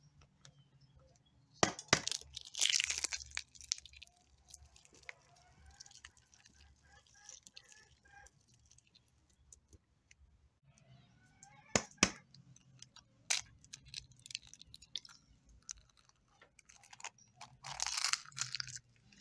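Eggs being cracked against a bowl and dropped into a dry mix of ground corn, sprouted grain and crushed boiled eggs: a few sharp cracks and clinks, with short crunching rustles of the mix near the start and near the end.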